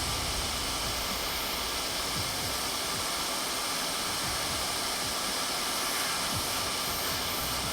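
Hot air rework station blowing a steady hiss of hot air to reflow solder and seat a component on a laptop logic board.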